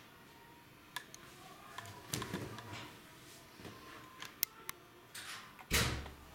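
Quiet room tone with scattered small clicks and knocks, and one louder thump near the end.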